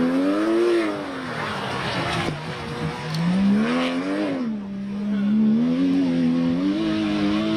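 Porsche 996 GT3 rally car's flat-six engine revving hard, the revs rising and falling twice as it slides through the corner and climbing again near the end, with the tyres scrabbling on the muddy loose surface.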